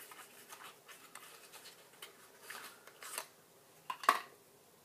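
Small perfume travel-sprayer packaging handled by hand: faint rustling and scratching with light clicks, and one sharper click about four seconds in.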